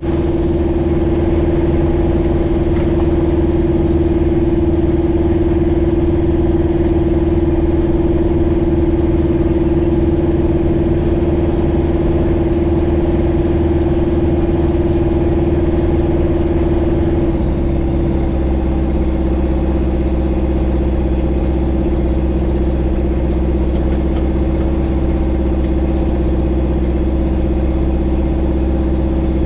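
Light aircraft's piston engine and propeller running steadily at low power on the ground, heard from inside the cockpit. About seventeen seconds in, the engine note steps slightly lower and settles there.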